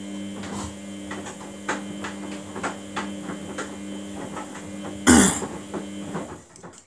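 Samsung WF80F5E0W4W front-loading washing machine tumbling its drum in the wash phase: a steady motor hum under the slosh and splash of water and wet laundry. There is one louder slosh about five seconds in, and the drum stops near the end, pausing before it turns the other way.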